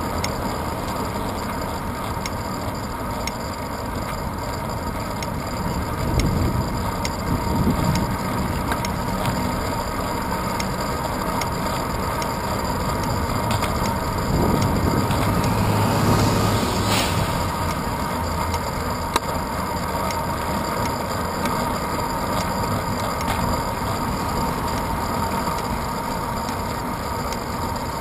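Bicycle riding noise picked up by a handlebar-mounted GoPro Hero 2: steady wind and tyre noise, with a heavier low rumble swelling and fading about halfway through as a city bus passes the other way.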